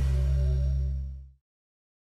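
The tail of a logo sting: a deep, steady low tone with faint higher tones above it, fading out about one and a half seconds in, then dead silence.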